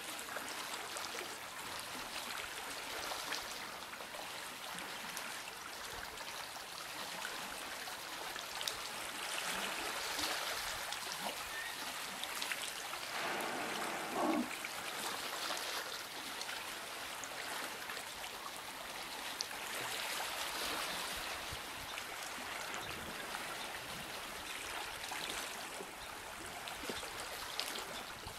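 Water trickling and lapping at the shoreline, a steady watery hiss. About thirteen seconds in there is a louder, rough rush lasting a second or so.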